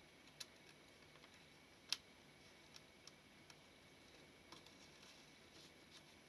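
Near silence broken by a few faint, small clicks, one sharper about two seconds in: fingertips seating and turning a notched metal ring on a Mamiya-Sekor 100 mm lens shutter.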